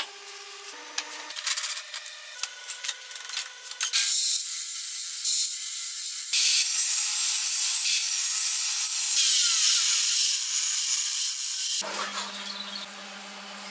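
Table saw blade cutting grooves into the edge of a wooden board: a loud, even cutting hiss that starts about four seconds in, shifts abruptly a couple of times, and stops suddenly near the end.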